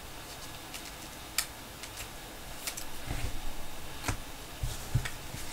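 Trading cards and packaging being handled on a table: scattered light clicks and taps, with a few soft low thumps in the second half.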